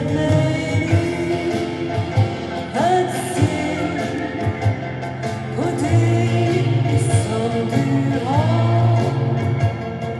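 A recorded pop song playing: sung vocal lines over a band with bass and a steady drum beat.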